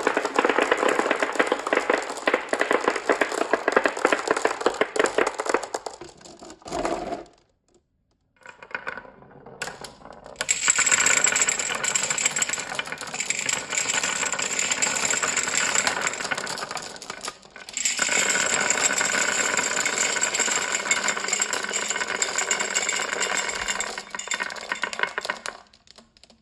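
Marbles rolling and clattering down a marble run in a dense, continuous rattle of fine clicks. The rattle dies away after about seven seconds. A few scattered clicks follow, then a brighter run of clatter starts about ten seconds in, breaks briefly, and fades out near the end.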